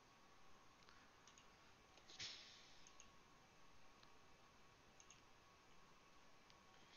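Near silence with a few faint computer mouse clicks, one of them louder about two seconds in.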